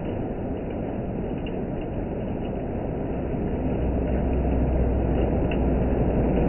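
Hail and rain pelting down in a dense, steady clatter. A low rumble underneath grows louder from about four seconds in.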